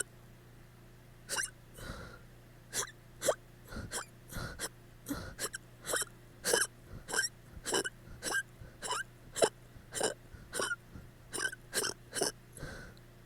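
A woman hiccuping over and over, about two short sharp hiccups a second with faint breaths between: drunk hiccups after heavy drinking.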